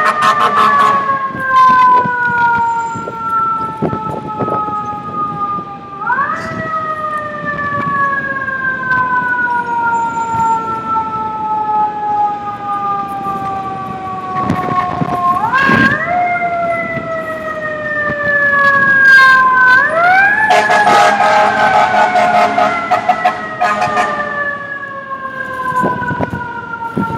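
Mechanical siren wailing: its tone sweeps quickly up three times, about 6, 15 and 20 seconds in, and each time slowly winds back down. Scattered sharp clicks and knocks are heard as well.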